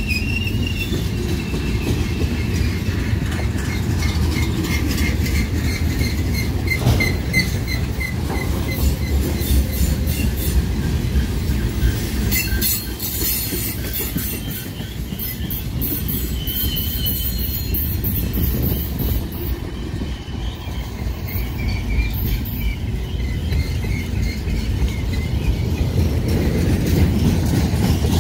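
BNSF freight train's cars rolling past with a steady low rumble, wheels squealing on and off in thin high tones and a run of rail clicks about halfway through. The cars sound bouncy, which the railfan takes as a sign the train may be running empty.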